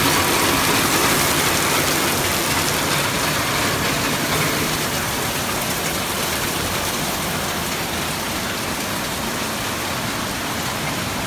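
Heavy rain pouring onto pavement, a steady hiss that eases slightly toward the end.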